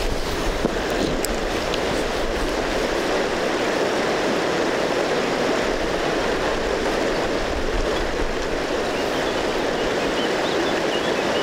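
Mountain river rushing over rapids and stones: a steady, even rush of water with no change in level.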